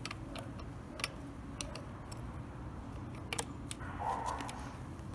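Scattered light clicks and ticks of a hand tool working the bar nuts on the side cover of a Stihl MS-461 chainsaw, which is not running, over a low steady background rumble.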